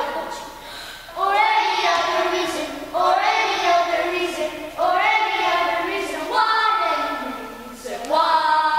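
A child singing unaccompanied in a series of held phrases about two seconds long, each followed by a short break for breath.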